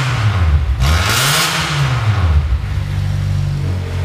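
Nissan Teana 2.0-litre four-cylinder heard through a straight-piped stainless steel Y exhaust with 2-inch piping. The revs are dropping at the start, then one quick blip rises and falls back, and the engine settles to a steady idle.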